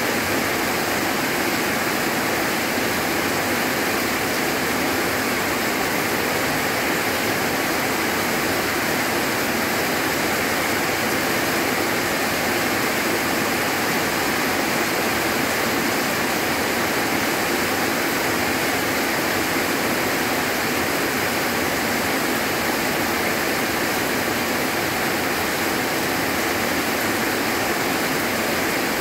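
Heavy rain pouring steadily onto leafy trees and palm fronds, an even, unbroken downpour.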